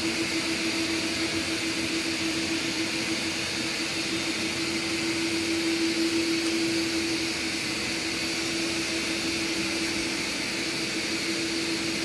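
Several Samsung POWERbot R9350 robot vacuums running together on carpet: a steady whirring rush with a constant hum tone under it.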